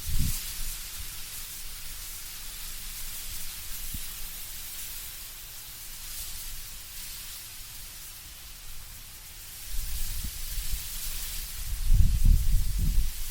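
Wind blowing through trees with leaves rustling in a steady hiss that swells and eases. A low rumbling gust builds about ten seconds in and is loudest near the end.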